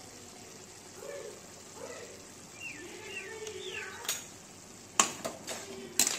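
Snail curry simmering in a metal wok on a gas stove: a steady hiss. Near the end come two sharp metal knocks.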